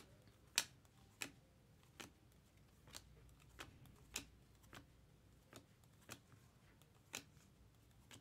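Topps Chrome baseball cards being flipped one at a time through a stack: faint, sharp clicks at a steady pace, roughly one every two-thirds of a second.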